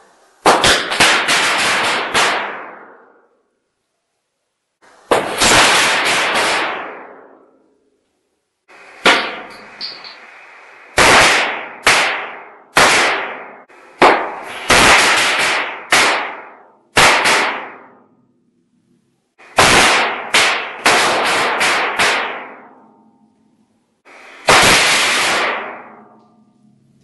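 Multi-shot firecracker grenade going off in an empty room: groups of sharp bangs in quick succession, each echoing off the walls, several groups in all with silent gaps between them. This is the variant with quieter, flying charges.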